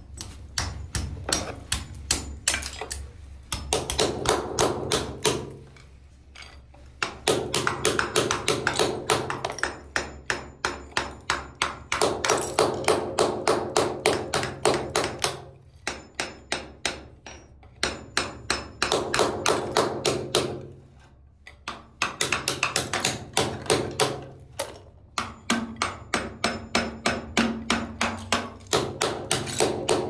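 Rapid metal tapping, about four strikes a second in runs of a few seconds with short pauses: a screwdriver being hammered against a bathroom wall to chip off old ceramic tiles and the mortar behind them.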